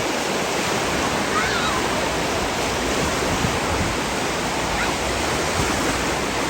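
Steady rushing of falling and splashing water, as from waterpark slides and fountains, with a few faint short high calls in the background.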